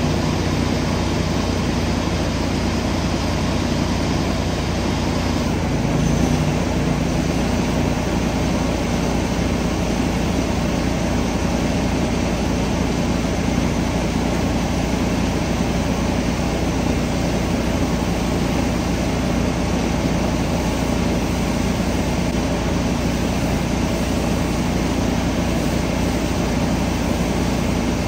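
An engine running steadily at constant speed, under the hiss of water spraying from a hose wand onto an asphalt shingle roof.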